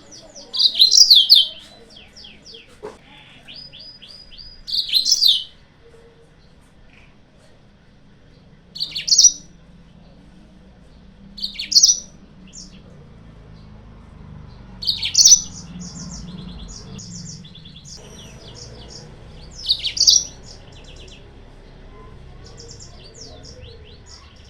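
Yellow-fronted canary (Mozambique canary) singing. Loud short chirping phrases come every few seconds, with quieter fast trills between them.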